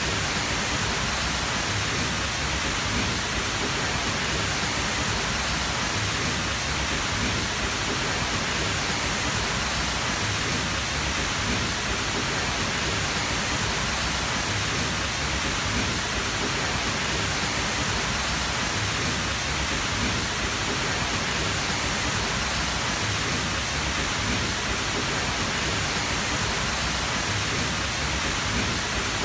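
Tall waterfall rushing: a steady, dense roar of falling water, even throughout with no breaks.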